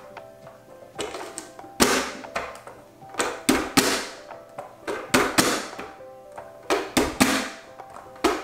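Vidalia Chop Wizard vegetable chopper being pressed down again and again to dice a pepper: about a dozen sharp clacks at an uneven pace, some in quick pairs, as the lid pushes the pepper through the blade grid. Light background music plays underneath.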